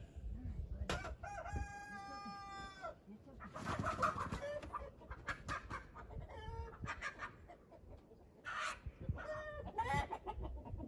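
Chickens squawking and clucking in agitation at being caught and handled, with one long drawn-out call about one and a half seconds in, followed by a string of shorter calls.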